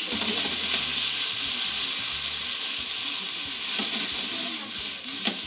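Yakisoba noodles sizzling and steaming in hot oil in a frying pan, with a splash of water just added, while chopsticks stir them. The hiss is steady, with a sharp click near the end.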